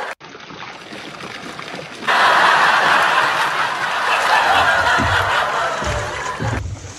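Bears splashing and thrashing in a plastic water tub: loud, continuous water splashing and sloshing that starts about two seconds in, with a few low sounds near the end.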